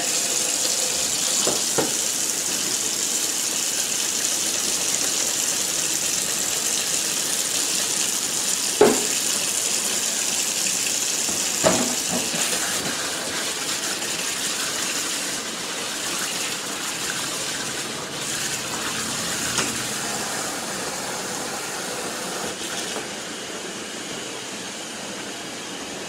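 Kitchen faucet running steadily into a stainless steel sink as it fills. A couple of light knocks come about nine and twelve seconds in.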